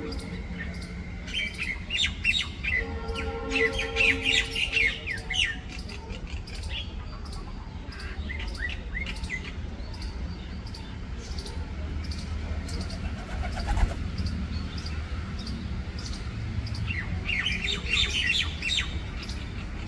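A bird chirping and twittering in quick runs of high chirps, coming in three spells with quieter gaps between them.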